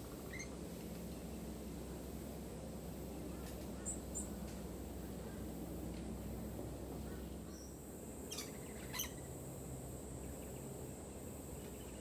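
Birds calling in a garden: a few short, high chirps, then two sharp calls about half a second apart a little past the middle, over a steady low background hum.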